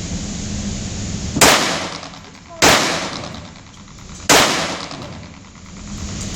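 .22 firearm fired three times, slowly, about a second and a half apart. Each shot is a sharp crack that rings on for about a second, over a steady background rush.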